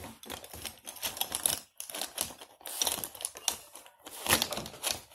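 Irregular clicking and clattering of small hard plastic objects, coloring markers and pens being rummaged through on a tabletop. The clatter comes in quick clusters, loudest near the end.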